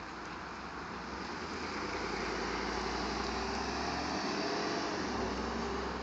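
A passing vehicle: a rumble that swells from about a second in, holds through the middle and eases near the end.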